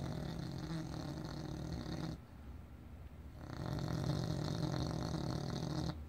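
Bulldog snoring in its sleep: a long snore fading out about two seconds in, a short pause, then another long snore starting about three and a half seconds in.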